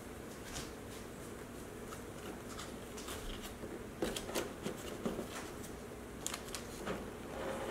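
Clear plastic packaging tray and plastic wrap crinkling and clicking as a hand works a boxed figure loose, starting about four seconds in; before that only a faint steady background hiss.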